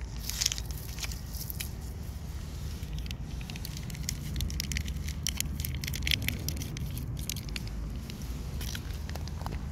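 Scattered sharp crackles and scuffs, thickest in the middle, over a steady low rumble.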